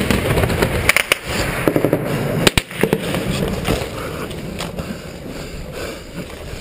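Small-arms gunfire cracking at irregular intervals: a few shots close together about a second in and a sharp one about two and a half seconds in. Under it runs steady scuffing and rustling of gear and gravel on a helmet-mounted camera.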